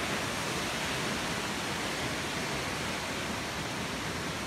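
Steady, even rushing of a nearby waterfall, Trafalgar Falls' falling water heard as constant white-noise-like spray.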